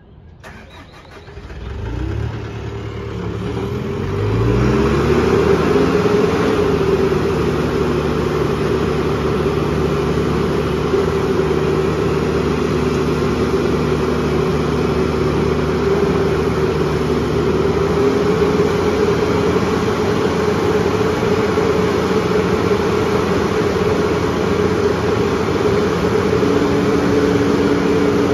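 SkyTrak 6042 telehandler's diesel engine starting about two seconds in, rising in speed, then running steadily. Near the end a steady hydraulic whine joins as the boom is raised.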